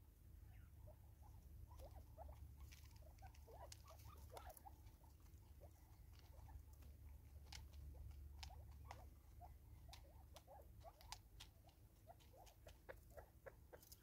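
Natal spurfowl feeding at a seed feeder: many sharp pecking clicks and a scatter of short, soft squeaky chirps, over a low steady rumble.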